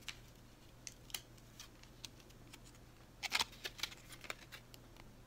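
Light clicks and crackles of a Juul pod's plastic blister pack being handled in the hands, with a louder cluster of clicks about three and a half seconds in.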